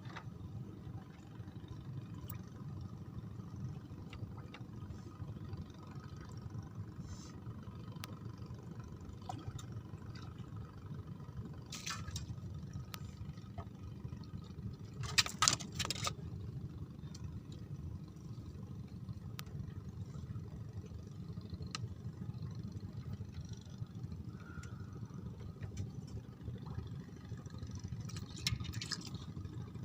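A steady low motor hum, with a few short clattering noises, the loudest about halfway through.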